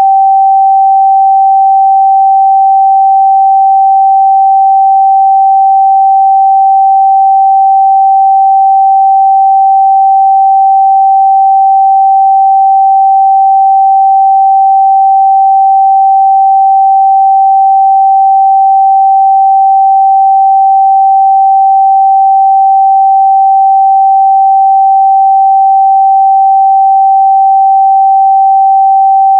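A pure 777 Hz sine-wave test tone, held steady and loud at one unchanging pitch with nothing else heard.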